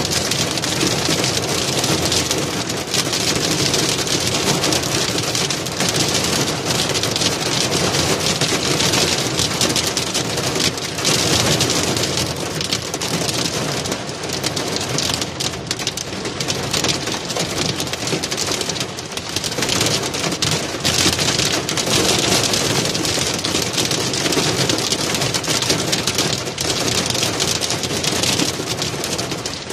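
Heavy rain pelting a car's windshield, heard from inside the car: a dense, steady hiss of drops that swells and eases slightly.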